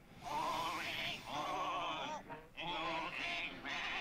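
A chorus of cartoon sheep bleating in unison, four long wavering bleats with short breaks between them.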